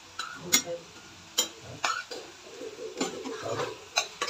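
Metal spatula stirring a thick shrimp curry in a pan, with a handful of sharp knocks of metal on the pan about a second apart.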